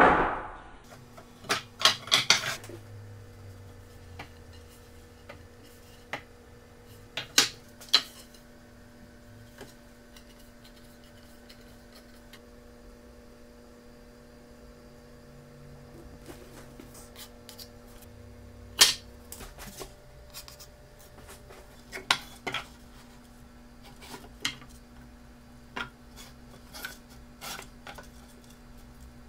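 Pine boards set down on a wooden workbench: a loud wooden clatter at the start, then scattered knocks and taps as the boards are moved and laid out.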